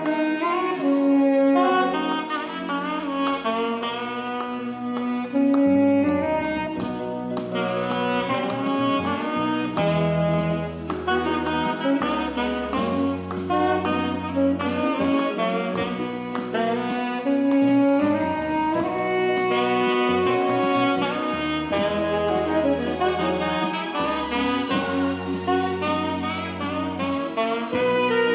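Saxophone playing the melody of a gospel song over a backing track, with long bass notes and a steady beat underneath.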